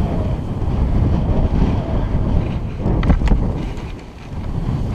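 Wind buffeting the microphone, a loud steady low rumble, with a couple of sharp knocks about three seconds in.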